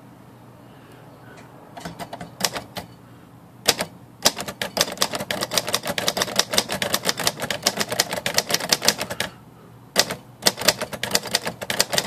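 Royal Quiet De Luxe manual typewriter being typed on, its typebars striking the platen. A few keystrokes start about two seconds in, then a fast, even run of strikes, a short pause, and more typing from about ten seconds. The machine is freshly cleaned and serviced and types smoothly.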